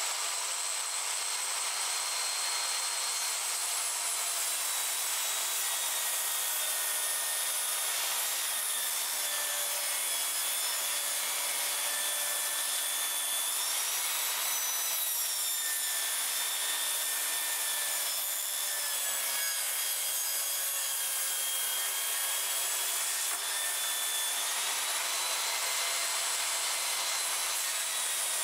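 DeWalt jobsite table saw running and ripping a long wooden board lengthwise along the fence. A steady high motor whine whose pitch sags slightly and recovers as the blade loads up in the wood.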